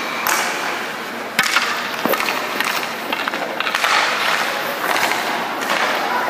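Ice-hockey skate blades scraping and carving on rink ice, with sharp knocks about a second and a half and two seconds in and thuds of a padded goalie going down onto the ice.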